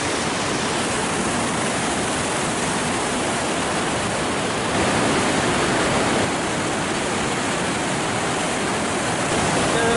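Waterfall rushing, a loud steady roar of falling water, a little louder about five seconds in.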